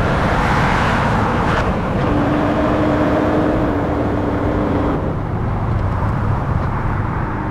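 AI-generated sound effects of a sports car driving: steady engine and road noise, with a held engine tone from about two seconds in until about five seconds in.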